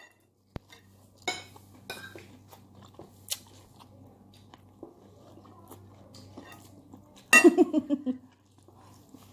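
Eating sounds from biting and chewing corn on the cob, with scattered small clicks and clinks over a steady low hum. A brief burst of the woman's voice about seven seconds in.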